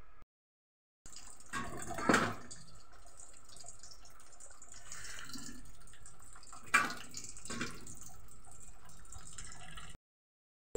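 Broth with whole spices, tomato and onion boiling hard in a metal pot, a steady bubbling with two sharp knocks about two and seven seconds in.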